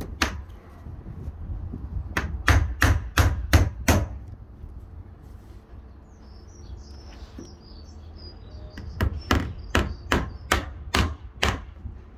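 Hammer driving nails into wooden capping strips on a timber shed: a run of about six quick strikes, a pause, then a second run of about seven. A bird chirps in the pause.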